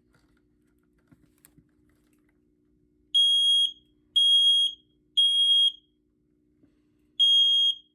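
Smoke alarm sounding in the temporal-three pattern: three loud, high-pitched beeps about a second apart, a pause, and the next set of three starting near the end. A few faint clicks of handling come before the beeps.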